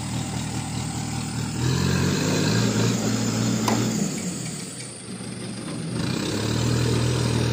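Pick-and-carry mobile crane's diesel engine revving up under load as the crane lifts a heavy steel frame. It eases off about four seconds in, then revs up again near the end.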